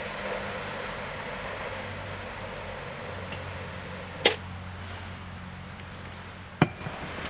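Butane gas can filling the gas tank of a Gauge 1 live steam locomotive, with a faint steady hiss, then two sharp clicks about four and six and a half seconds in, around when the can is lifted off the filler valve.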